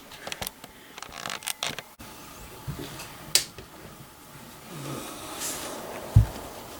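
Scattered small clicks and taps, with a sharper click a little after three seconds in and a dull low thump near the end.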